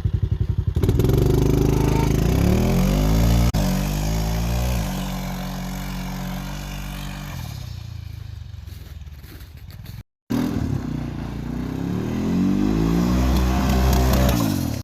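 Turbocharged John Deere diesel engine chugging at idle, then revved up and let back down twice, with the turbo fluttering and the blow-off valve venting as the throttle closes.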